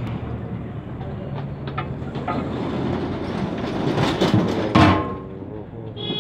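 A large aluminium lid scraping and clanging shut on a big cooking pot, loudest between about four and five seconds in, with a ringing clang at the peak. Earlier come a few light metal clinks of a ladle and steel plate, over steady street-market background noise.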